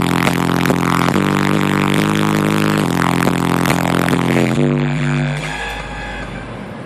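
Bass-heavy music played loud through a car audio system with four 15-inch subwoofers. The music stops about five and a half seconds in, leaving a deep low bass note that dies away near the end.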